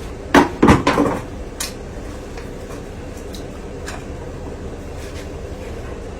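A quick cluster of three or four loud knocks or clatters about half a second in, over a steady low mechanical hum with a held drone.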